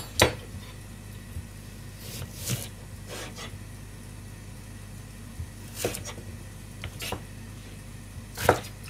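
Chef's knife slicing a cucumber lengthwise on a plastic cutting board: about eight scattered knocks of the blade meeting the board, the strongest just after the start and near the end, over a steady low hum.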